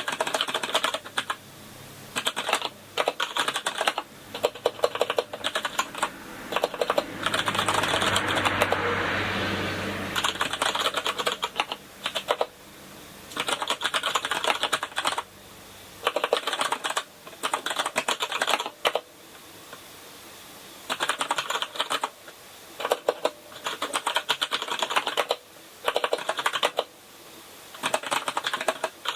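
Typing on a KINESIS Advantage contoured keyboard with Cherry MX Brown tactile switches: quick runs of key clicks broken by short pauses. A rushing noise swells and fades between about seven and eleven seconds in.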